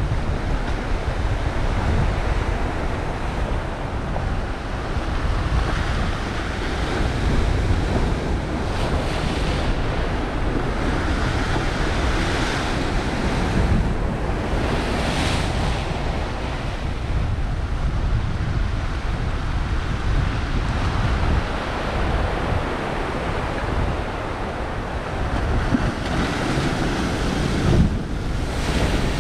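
Ocean surf washing and breaking against a rocky shore, with wind buffeting the microphone as a steady rumble underneath. The wash swells now and then, and a stronger wave surges against the rocks near the end.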